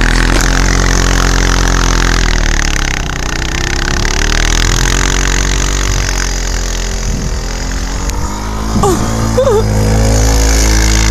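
An engine running, its speed dropping about two seconds in and climbing back a few seconds later. Near the end a few short wavering sounds rise and fall over it.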